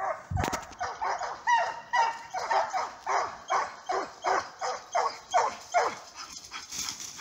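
Russian hounds baying in full cry on a hare's trail, short ringing yelps coming about twice a second.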